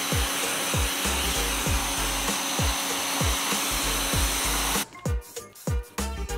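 Pressure washer running, its jet hissing hard against a tire, with a steady motor hum underneath; it cuts off about five seconds in. Background music with a steady beat plays throughout.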